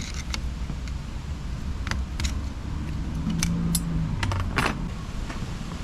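Small metal clutch parts, springs among them, clinking and clicking as they are handled and set down: a handful of sharp, irregular clicks over a few seconds, above a low steady hum.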